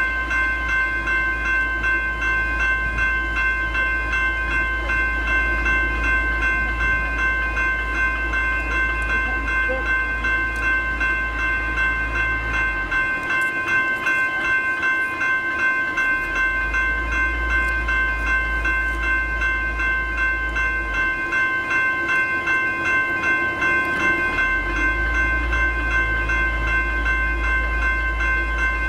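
General Signals electronic level-crossing bells ringing continuously in rapid, even strokes: the warning that the crossing is activated for an approaching train. A low rumble underneath drops out twice.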